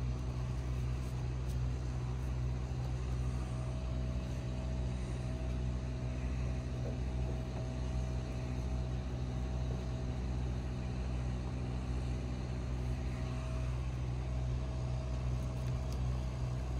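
A steady low machine hum, with a faint higher whine that comes in a few seconds in and fades out near the end.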